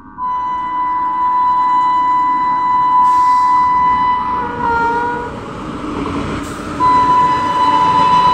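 Electric locomotive horn sounding a long steady blast of about five seconds, then after a short break a second long blast, over the rumble of an express train running through.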